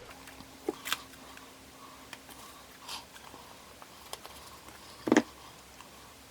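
Paper being handled and glued down on a craft table: scattered light rustles and taps, with a sharp double knock about five seconds in.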